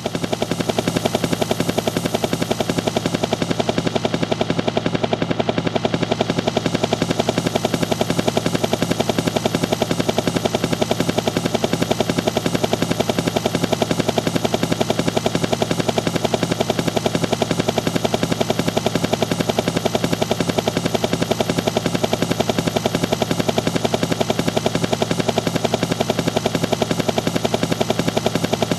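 Helicopter rotor blades chopping with a fast, even beat, loud and steady throughout.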